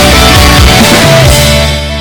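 Rock-style background music with drums, ending on a held chord about one and a half seconds in that begins to fade.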